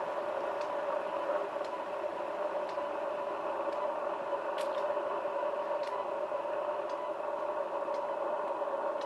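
Steady hiss with a constant hum from a poor-quality recording, with faint ticks about once a second from footsteps while walking.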